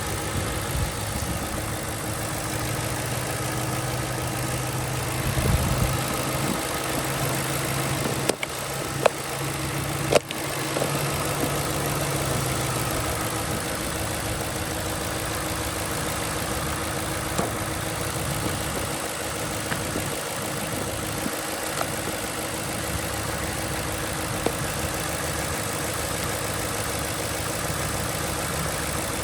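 2007 Ford Crown Victoria's 4.6-litre V8 running, heard as a steady engine drone with a low hum that fades out about halfway through. A few sharp knocks come between about eight and ten seconds in.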